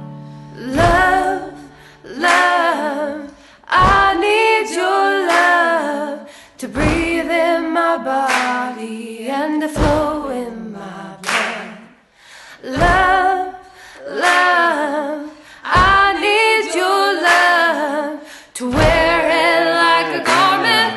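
A single high voice singing a melody unaccompanied, in short phrases with brief breaths between them. Near the end, fuller accompaniment begins to come in beneath it.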